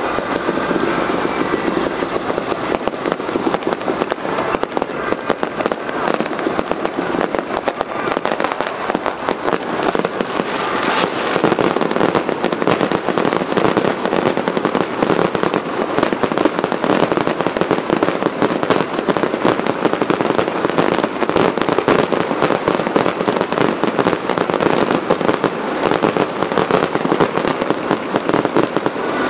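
Aerial fireworks display going off in a dense, unbroken barrage of bangs and crackling, growing somewhat louder about twelve seconds in.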